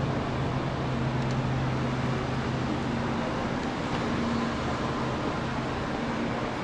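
Steady ambient noise of a large station waiting hall: a continuous wash of background sound with a low hum that fades about halfway through.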